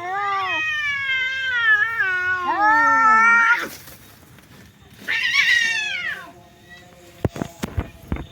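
Domestic cats caterwauling in a fight standoff: a long, wavering, baby-like yowl of about three and a half seconds, then a shorter yowl about five seconds in. A few sharp knocks follow near the end.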